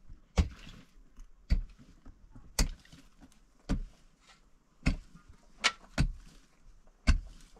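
Sharp, repeated knocks of a hand tool striking something hard, at an even pace of about one blow a second, with two coming close together near the middle.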